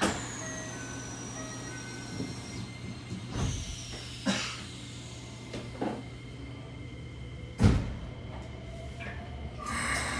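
Inside a Keikyu 1000 series electric train standing at the platform: a steady low electric hum with a faint falling high whine, a few clunks and one loud thump about seven and a half seconds in. Near the end a broader hiss and whine rise as the Mitsubishi full-SiC VVVF drive starts the train moving.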